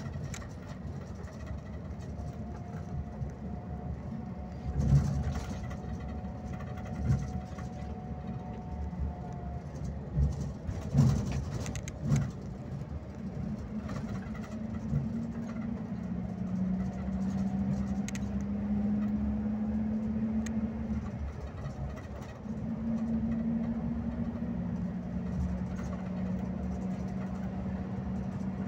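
Scania K360IB coach driving on the road, its engine and road noise heard from the driver's cab. Knocks and rattles come through in the first half. From about halfway a steady engine drone edges up in pitch as the coach picks up speed, dips briefly about three-quarters through, then carries on.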